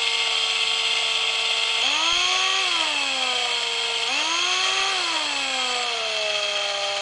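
Straus cordless drill's motor running with no load, its whine speeding up and dropping back twice as the trigger is squeezed and eased. The variable-speed trigger switch is faulty: the speed holds over part of its travel and then jumps, which the owner hopes is only a contact fault in the switch.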